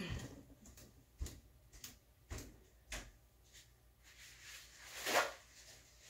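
Paintbrush being cleaned in a water jar: a run of faint light knocks and taps, then a louder short swish about five seconds in.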